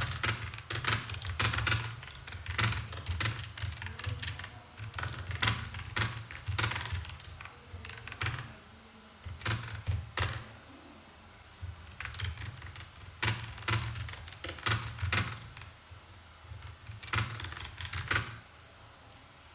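Typing on a computer keyboard during a timed typing-speed test: quick, irregular keystrokes with dull thuds, coming in bursts with a couple of short pauses, and stopping shortly before the end.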